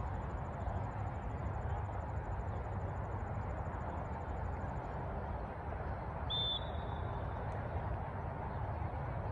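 Steady outdoor background noise, heaviest in the low end, with a faint rapid high insect trill that stops about halfway through and a brief high tone about six seconds in.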